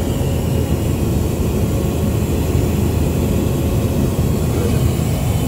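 Steady, loud drone of a small passenger airplane in flight, heard from inside the cabin, with its weight in the low range and no change throughout.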